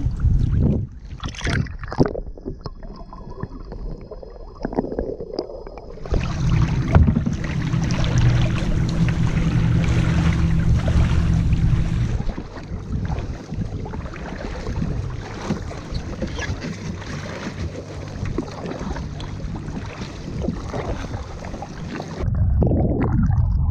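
Kayak paddle strokes splashing in lake water, with wind buffeting the microphone. The sound changes abruptly about six seconds in and again near the end.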